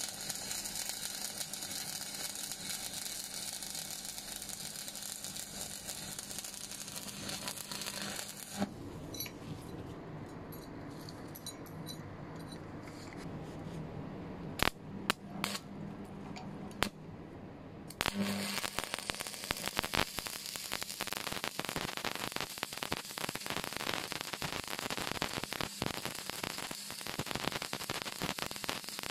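Stick (arc) welding with 6013 rods: the arc crackles and hisses steadily. It stops for several seconds, with a few sharp clicks, then is struck again and crackles on.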